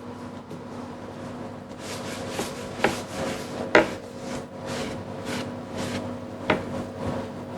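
Kitchen handling sounds over a steady low hum: a rhythmic rubbing or scraping, about two strokes a second, starting about two seconds in, with three sharp knocks of utensils on hard surfaces.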